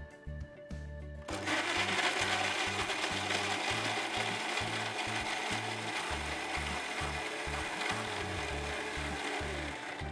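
Electric mixer-grinder with a stainless steel jar running steadily for about eight seconds, starting about a second in and stopping just before the end, as it grinds raw onion, tomato, coriander, chilli, garlic, cashews and whole spices into a wet gravy paste.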